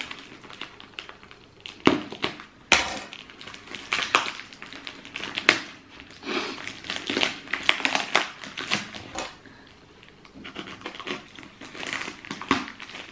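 Parcel packaging being handled and torn open by hand: irregular crinkling and crackling, with sharp snaps about two seconds in and again just under three seconds in.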